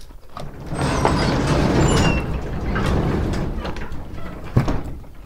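A box truck's metal roll-up door being pulled down shut. It rattles and rumbles for about four seconds with a few short high squeals, then ends in a sharp thump as it closes.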